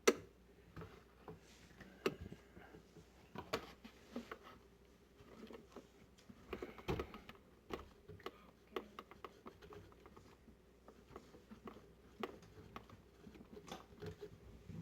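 Scattered small clicks, taps and knocks of hands handling electrical wires and wire connectors while disconnecting a garbage disposal's ground wire.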